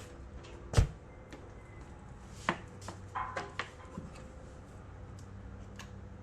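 A few knocks and clicks from handling the resin 3D printer and its parts: one sharp knock about a second in, then several lighter clicks and taps, over a faint steady hum.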